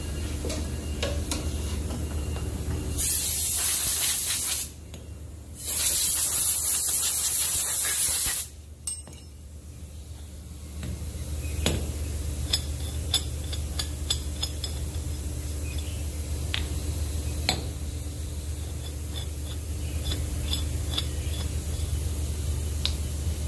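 Handheld compressed-air blow gun fired in two bursts of hiss, the first about a second and a half long and the second about three seconds, starting about three seconds in. Afterwards come scattered light clinks of steel shock-absorber parts being handled, over a steady low workshop hum.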